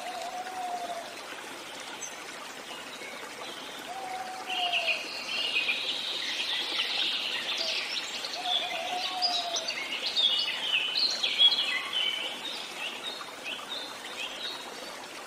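Birds chirping and calling over a steady hiss, the chirping busiest through the middle; a lower call that rises and falls comes three times, about four seconds apart.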